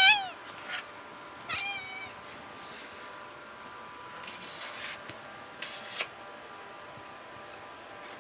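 Tuxedo cat meowing during play: a loud meow rising in pitch right at the start, and a second, shorter meow about a second and a half in. Soft rustling and a couple of light taps follow.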